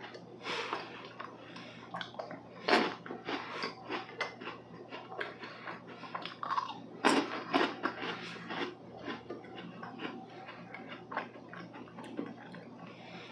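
Close-miked biting and chewing of small lemon meringue cookies: a run of crisp crackles and mouth sounds, with the sharpest bites about three and seven seconds in.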